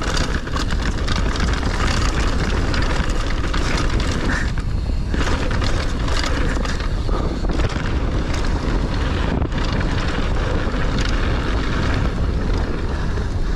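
Wind buffeting the camera microphone, mixed with tyre roar on dirt and a constant clatter of knocks and rattles from a hardtail mountain bike riding fast down a rough trail.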